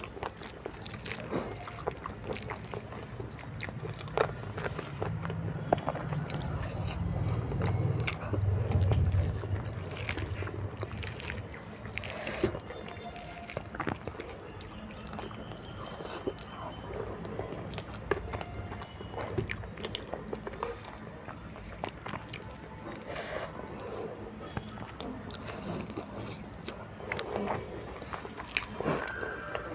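A person eating instant noodles by hand, with chewing and mouth sounds and many small clicks of fingers against a steel plate. A low rumble builds for several seconds and fades about ten seconds in.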